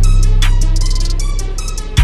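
Hip hop style backing music with a drum-machine beat: quick hi-hat ticks over a heavy, sustained bass note that comes back in at the end.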